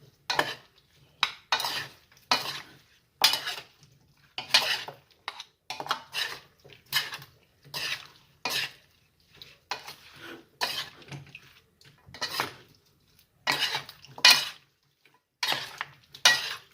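A kitchen utensil stirring and scraping in a bowl as a soy-and-oyster-sauce marinade is mixed into chicken wings, in repeated short strokes about one or two a second.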